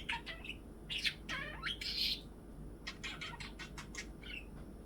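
Pet budgerigar chattering: a rapid run of short chirps, clicks and squeaky sliding notes, loudest about one to two seconds in.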